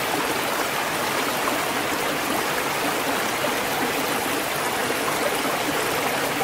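Shallow rocky stream running over boulders: a steady, even rush of water.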